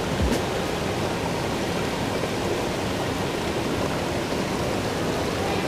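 Shallow rocky stream rushing steadily over stones, with a brief low thump just after the start.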